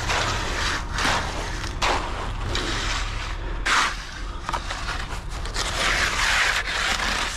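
Hand tools scraping through wet concrete in uneven strokes: a rake dragged through the fresh mix, then a steel hand trowel pushed along the slab's edge against the curb.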